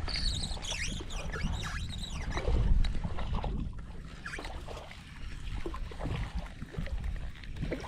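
Wind buffeting a body-worn camera's microphone: a steady low rumble, loudest about three seconds in. Over it, in the first couple of seconds, come high, wavering whistly sounds and a few small clicks.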